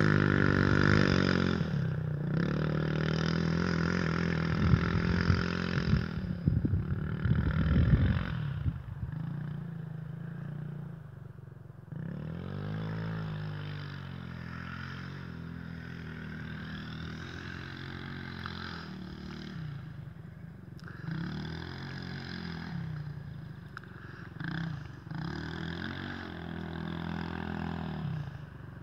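Lucky Star SP250 quad's engine revving up and down as it rides a dirt track, its pitch rising and falling. It is loudest over the first several seconds, with a few knocks, then fainter as the quad gets farther away.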